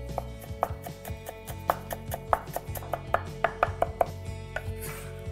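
Chef's knife chopping fresh parsley on a cutting board: a run of quick, uneven knocks that stop about four seconds in.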